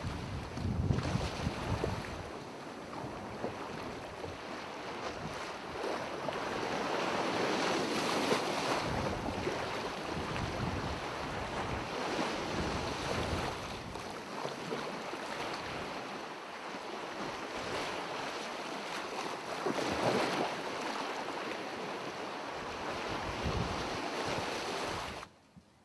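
Wind and sea surf rushing, swelling and easing in gusts, with wind buffeting the microphone; it stops abruptly near the end.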